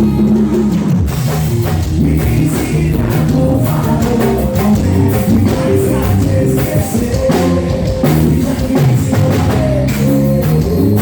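Live band music with drums and a sung melody, played loud over a PA system.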